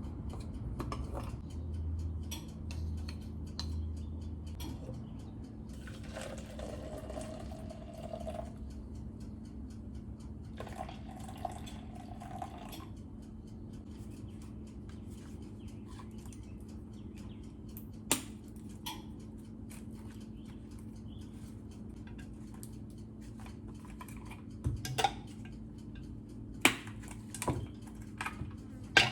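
Kitchen work sounds: dishes and utensils clinking and knocking, with two short rushes of liquid a few seconds in, over a steady low appliance hum. Sharp knocks come more often near the end.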